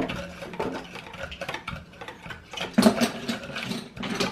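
Wire whisk beating a runny egg mixture in a plastic bowl: rapid, irregular ticking and scraping of the wires against the bowl, with one louder knock about three seconds in.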